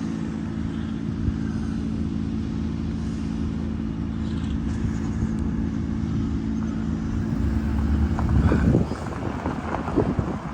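A motor vehicle engine running steadily at a constant pitch, which stops about eight and a half seconds in, followed by wind rumbling on the microphone.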